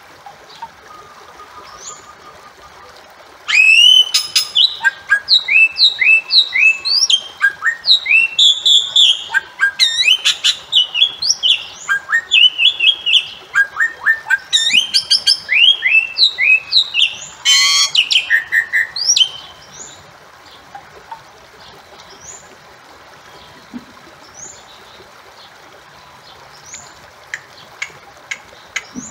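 Bali myna calling: a loud, rapid series of short whistled notes, many sliding up or down in pitch, mixed with a few harsh notes. It starts a few seconds in and stops after about sixteen seconds, leaving a faint background with only a few scattered quiet notes.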